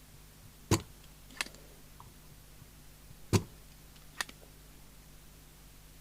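Tools knocking and clicking at the bench during desoldering work on a CB radio circuit board: two louder knocks about two and a half seconds apart, each followed by a lighter click, over faint mains hum.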